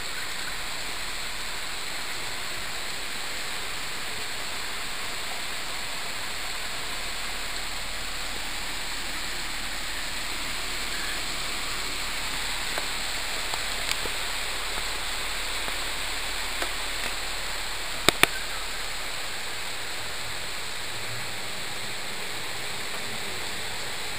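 Steady rain falling on trees and bushes, an even hiss. A few sharp ticks stand out, the loudest two close together about 18 seconds in.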